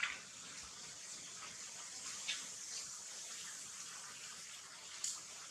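Steady high-pitched hiss of outdoor ambience, with a few brief sharp clicks: one at the start, one a little after two seconds, one near the end.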